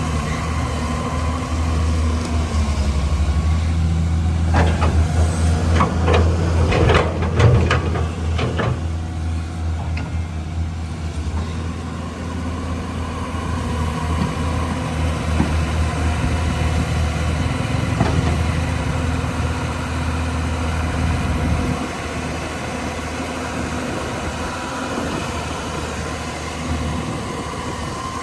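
Caterpillar 320 hydraulic excavator's diesel engine running steadily, with a cluster of knocks and clanks about four to nine seconds in.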